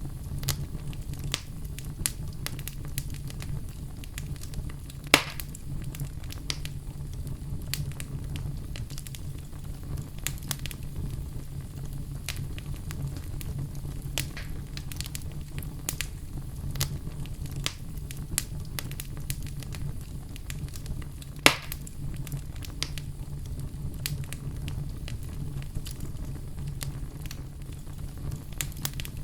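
Wood fire in a fireplace crackling, with a steady low rumble under frequent small snaps. Two louder pops stand out, about five seconds in and again about twenty-one seconds in.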